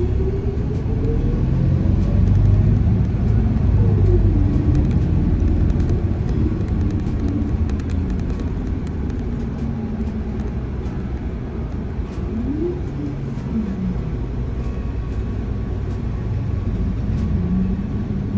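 City bus under way, heard from inside: a steady engine and road rumble. A drivetrain whine climbs in pitch over the first couple of seconds as the bus gathers speed, and later brief whines slide down and up as it slows and pulls on.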